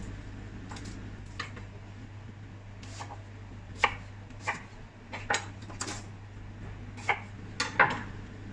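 Chef's knife cutting an onion on a cutting board: irregular sharp knocks of the blade and handling on the board, about ten in all, over a steady low hum.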